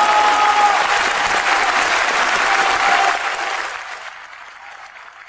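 Concert-hall audience applauding; the clapping dies away about four seconds in.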